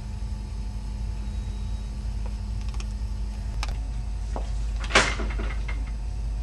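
Steady low room hum with a few faint clicks, and a brief rustle about five seconds in.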